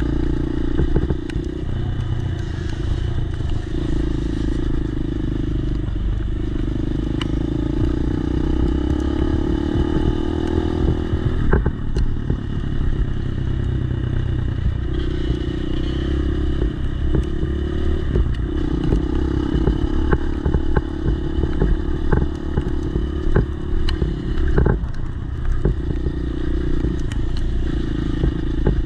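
Dirt bike engine running under way on a rough dirt trail, its pitch rising and falling as the throttle opens and eases off. Sharp knocks and clatter from the bike jolting over the bumpy ground come through, a few of them louder.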